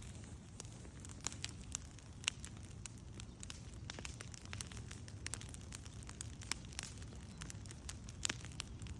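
Fire crackling, with irregular sharp pops and snaps over a low steady rumble of the flames.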